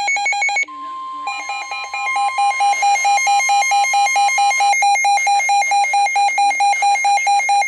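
Weather alert radios sounding their alert alarm for an incoming National Weather Service warning: a rapid, loud beeping, about four to five beeps a second, with a brief gap about half a second in. A separate steady tone, the kind broadcast as the weather radio warning alarm tone, joins it about a second in and stops a little past the middle.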